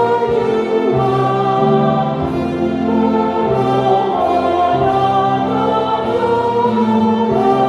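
Choir singing a hymn in slow, held notes over a steady bass line.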